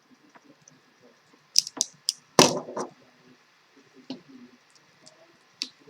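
A few sharp clicks and snaps of speaker cable being cut and handled as its outer jacket is stripped, the loudest a longer crackle about two and a half seconds in.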